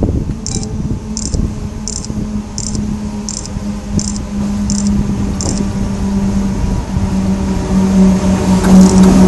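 Electric locomotive approaching on the line: a steady hum over a low rumble, growing louder as it nears. A faint high-pitched chirp repeats about every 0.7 seconds through the first half.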